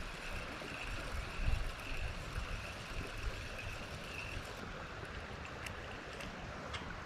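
Creek water flowing steadily, with a low rumble about a second and a half in.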